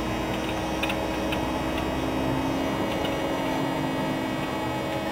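Steady hum and low rumble of a double-decker bus crawling in heavy traffic, heard on board, with a constant tone through it and a few faint, irregular ticks and rattles.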